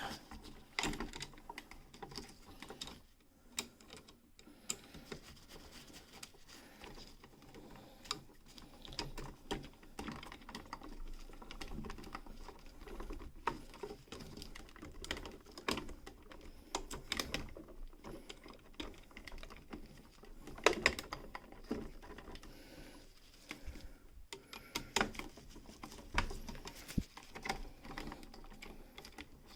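Irregular small clicks, taps and scrapes of pliers, copper wire and a light switch being handled as a bent wire is worked onto the switch's screw terminal. The sharpest clicks come a little past two-thirds of the way through.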